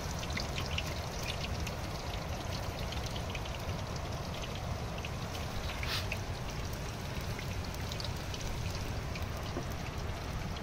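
Onions frying in hot oil in a clay handi: a steady sizzle with many small crackles, over a low steady rumble.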